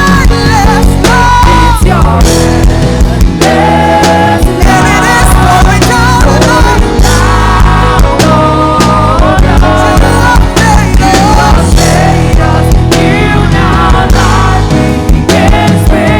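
Live worship band playing loudly: drums and bass under long, wavering melody notes.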